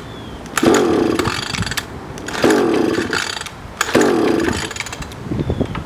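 Small 3.5 hp outboard motor being pull-started, the recoil starter rope yanked three times about a second and a half apart, the engine turning over but not firing.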